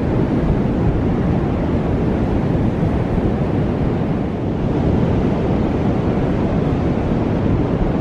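Strong onshore wind buffeting the microphone in a steady low rumble, with ocean surf washing in behind it.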